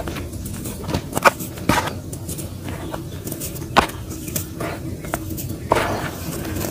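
Dry, crumbly dirt and small clods crunching and crackling as fingers crush and rub them, with the patter of falling grains. A few sharper crunches come about a second in, near four seconds and near the end, over a steady low hum.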